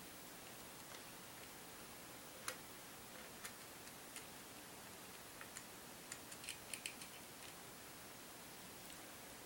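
Faint, scattered small metallic clicks as a screw is worked out of a Marlin 336SS rifle's trigger guard plate and handled, with a quick run of several clicks about six to seven seconds in, over a low hiss.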